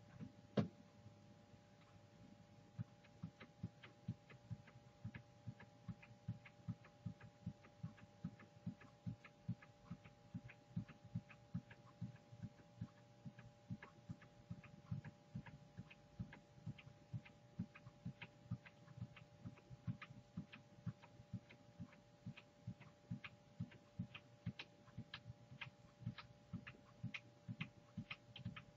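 Faint small clicks, about three a second, of a computer mouse's scroll wheel turning notch by notch, with one louder click about half a second in. A steady two-tone electrical hum underneath.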